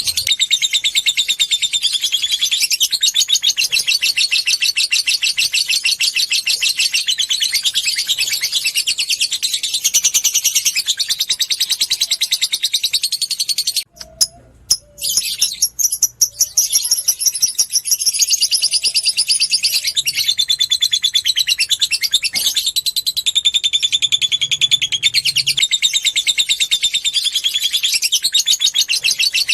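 Lovebird singing a long ngekek: a continuous, rapid, high-pitched chattering trill. It breaks off for about two seconds around the middle, then resumes.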